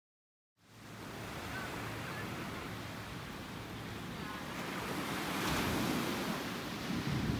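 Wind rushing over the microphone and surf washing on a beach, a steady noise that starts suddenly about half a second in and grows slightly louder.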